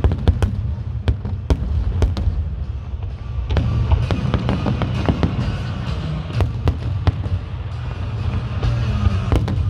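Fireworks display going off: a rapid, irregular string of sharp bangs and crackles over a continuous low rumble of bursts, with music playing underneath.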